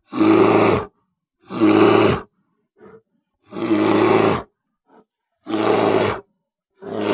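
Grizzly bear roaring five times, each roar under a second long and about two seconds apart, with faint short breaths between them.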